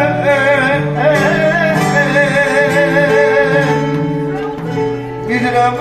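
Uzun hava, a free-rhythm Turkish folk song: a singer holds long, ornamented notes with wide vibrato over sustained notes from a plucked string instrument. The voice stops a little under four seconds in and comes back near the end.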